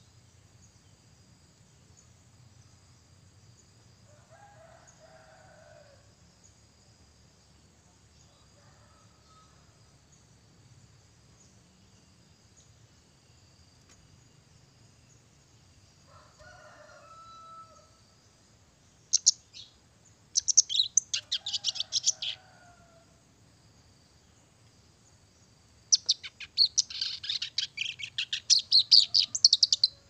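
Caged kerak basi (a reed warbler) singing in loud bursts of rapid, harsh, high chattering notes: a short burst about two thirds of the way in, a longer one just after, and a long run over the last four seconds. Fainter, lower calls come a few times before that.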